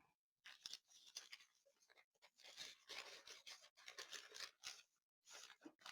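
Near silence, with faint scattered rustling and handling noises of small packaging and plastic kit pieces being sorted.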